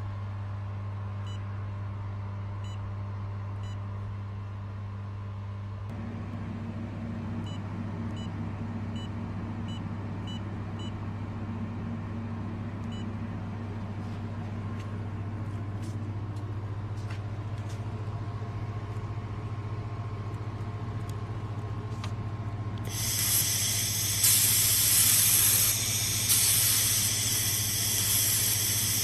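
Fiber laser welding machine running with a steady low hum, with short electronic beeps from touchscreen presses in the first half. About 23 s in, a loud steady hiss starts: shielding gas blowing from the handheld welding head.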